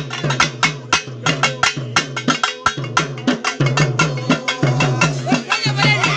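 Pambai, the paired cylindrical metal-shelled folk drums, beaten with sticks in a fast, driving rhythm: sharp strokes several times a second over a deep ringing tone.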